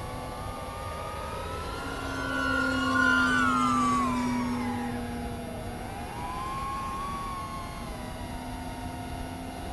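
Electric motors and propellers of small RC aircraft in flight, a 5-inch FPV quadcopter and an RC flying wing, whining with several pitches that glide up and down. The sound swells louder for a few seconds around the middle.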